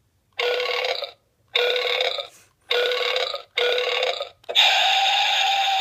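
A toy sound-effects machine playing the same short recorded effect four times in a row, about a second apart, then starting a longer, steady effect about four and a half seconds in.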